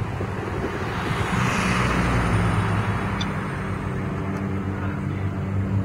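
Street traffic: a vehicle passing on wet pavement, its noise swelling and fading about two seconds in, over a steady low hum.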